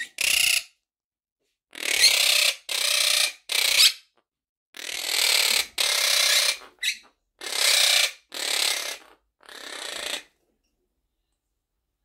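Lutino Quaker parrot (monk parakeet) giving a run of about ten harsh, rasping squawks, each under a second long, that stop about two seconds before the end. This is a territorial display over its nest box.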